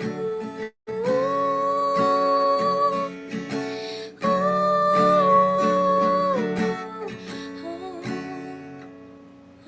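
Acoustic guitar strumming under a held melody line. The sound cuts out briefly twice, about a second in and again about four seconds in, and fades near the end.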